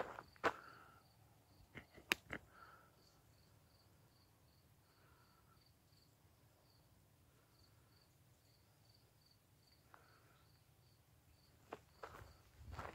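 A cricket chirping steadily and faintly, about three chirps a second. A few footsteps in the first couple of seconds and again near the end.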